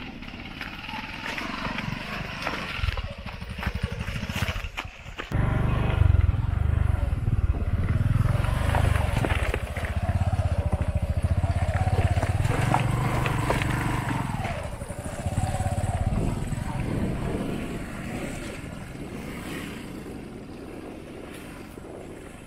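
A small motorcycle's engine working up a steep, rough dirt track. A loud low rumble sets in suddenly about five seconds in and eases off after the middle.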